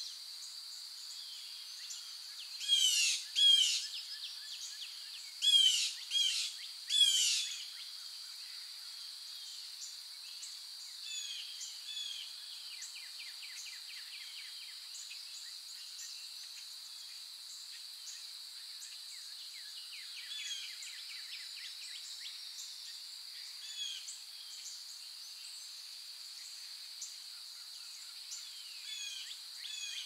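Wild birds calling and chirping over a steady high-pitched hiss. Two loud, sharp calls that fall in pitch come a few seconds in, then three more soon after, and softer chirps go on through the rest.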